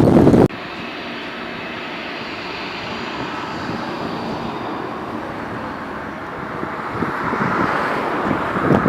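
Wind buffeting the microphone, cut off abruptly about half a second in, then the steady rushing noise of a jet airliner's engines, growing louder near the end.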